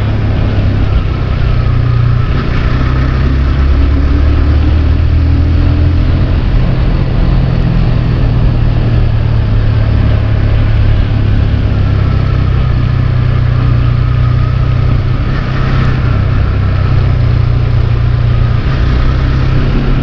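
Motorcycle engine running steadily while riding, its note rising and falling a little, over a dense low rumble of road and wind noise.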